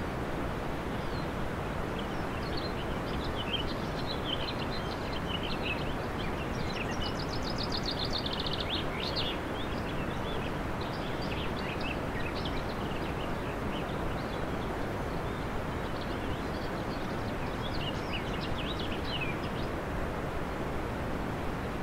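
Birds chirping over a steady rushing noise, with one rapid trill about seven seconds in and a few more chirps near the end.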